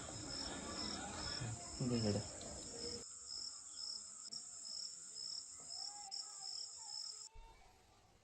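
Cricket chirping in an even, repeating pulse that stops suddenly near the end. A brief murmur of a voice about two seconds in.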